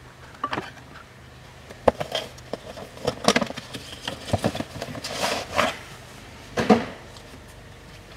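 Hands handling a new cabin air filter and its cardboard box: irregular clicks, taps and rustles. There is a sharp click about two seconds in, and louder rustling bursts come later.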